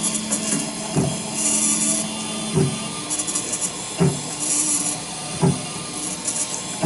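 An IC polishing machine's spindle-driven end mill grinds across the chips on a circuit board in repeated passes during a final cleaning cut. A low knock comes about every one and a half seconds, each paired with a short burst of high, gritty hiss over a steady machine hum.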